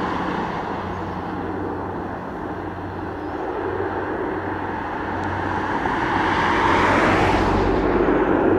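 De Havilland Canada Dash 7's four PT6A turboprops on final approach, a steady propeller drone with a low hum that grows louder from about halfway through as the aircraft comes closer.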